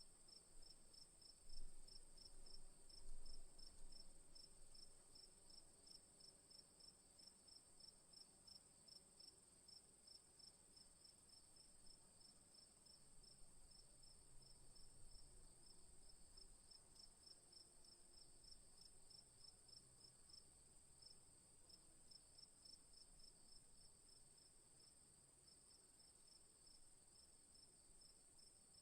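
Crickets at night: one continuous high trill and, a little lower, a steady run of evenly spaced chirps, both faint and unbroken. Two brief low bumps about one and a half and three seconds in.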